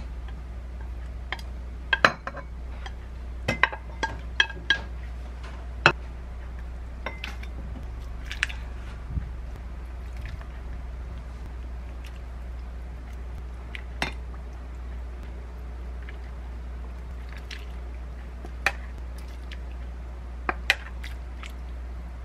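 Chopsticks and a metal ladle clinking and tapping against ceramic bowls and a plate while noodle soup is served: a cluster of sharp clinks in the first six seconds, then a few scattered ones. A faint pour of soft-tofu broth sits among them, over a steady low hum.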